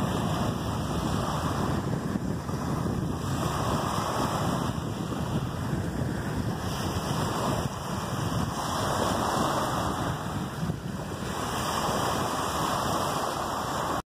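Small ocean waves breaking and washing up over a sandy beach, the surf swelling and easing every few seconds, with wind rumbling on the microphone.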